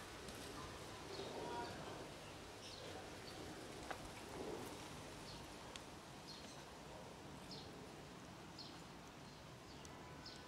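Quiet outdoor background with a small bird chirping: short, high, falling chirps about once a second. A single sharp click about four seconds in.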